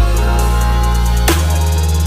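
Background electronic music with a heavy bass line and a drum beat.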